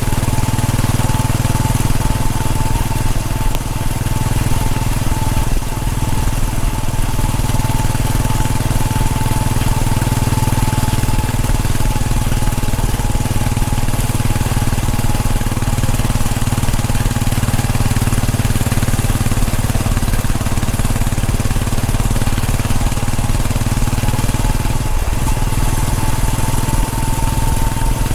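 Royal Enfield Bullet 500's single-cylinder engine running at a steady road speed, heard from the moving motorcycle, with a thin steady whine above it.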